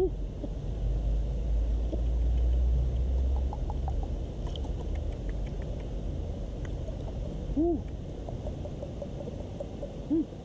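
A few short, soft hooting calls from a man with pursed lips, one right at the start, one past the middle and one near the end, over a steady low rumble that is strongest in the first few seconds.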